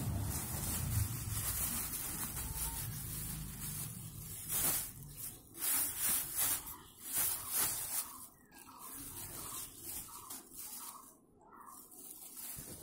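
Clear plastic bag crinkling and rustling as it is handled, in a run of short, crackly bursts, most of them between about four and eight seconds in.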